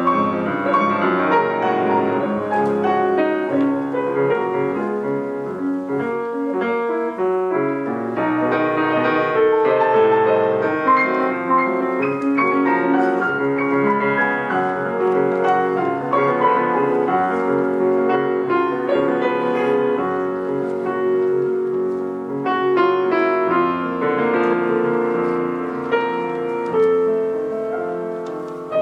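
Piano playing classical-style music: an unbroken flow of notes and chords.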